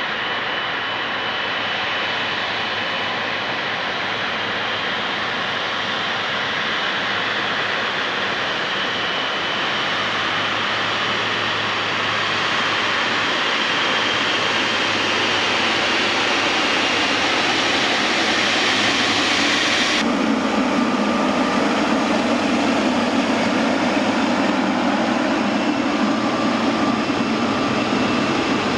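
Boeing 777F freighter's GE90 turbofans at low taxi power close by: a steady jet whine over a rushing rumble, slowly getting louder. About two-thirds of the way through, the sound abruptly turns deeper and rougher as the high whine drops away.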